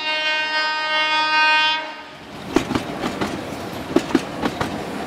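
A train horn sounds one steady note for about two seconds and cuts off. The train then rolls on with the clickety-clack of its wheels over the rail joints.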